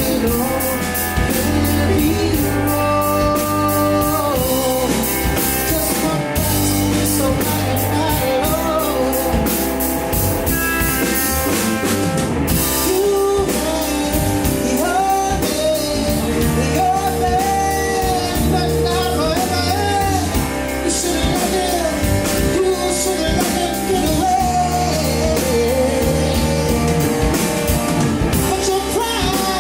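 Rock band playing a song with a male lead singer, backed by drum kit, guitar and bass.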